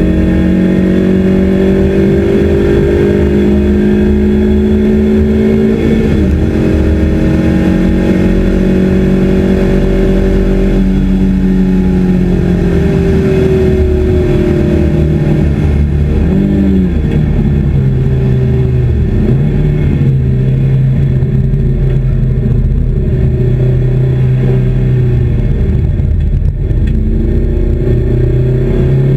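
Honda Civic's 1.8-litre R18 four-cylinder engine under hard acceleration on track, its pitch climbing through the gears. Around sixteen to seventeen seconds in, the note drops away as the car brakes and changes down. It then runs at a lower, steady pitch through a slow section and starts to climb again near the end, over loud road and wind noise.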